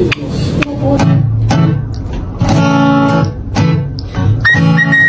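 Acoustic guitar strumming chords, with a high steady whistle coming in near the end.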